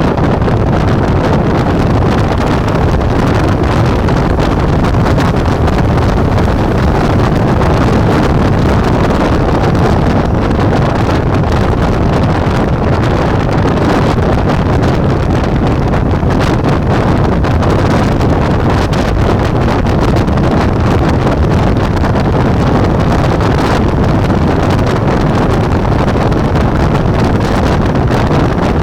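Ducati Multistrada V4 motorcycle running along at a steady speed, its V4 engine mixed into heavy wind rush on the action camera's microphone. The sound is loud and even, with no clear revving or gear changes.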